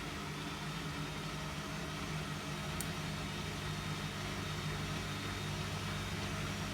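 Hotpoint WMFUG742 washing machine running with an overloaded towel load, its motor giving a steady hum at constant speed.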